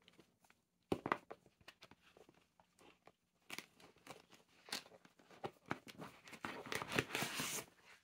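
Handling noise from unpacking: gloved hands lifting a cordless nail drill out of a foam-lined cardboard box, with a sharp knock about a second in, scattered clicks, then a dense crinkling rustle through the second half.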